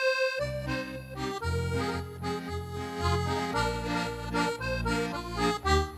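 Roland FR-4x digital V-Accordion playing an instrumental interlude between sung verses of a hymn: a held note breaks off about half a second in, then a melody moves over changing low bass notes.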